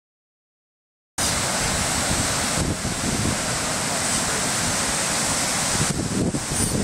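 Steady rush of surf breaking on the shore, mixed with wind buffeting the microphone in an uneven low rumble. It starts abruptly about a second in, after silence.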